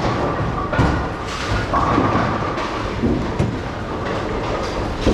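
Bowling-centre din: bowling balls rumbling down the lanes, with a few sharp knocks of balls and pins striking.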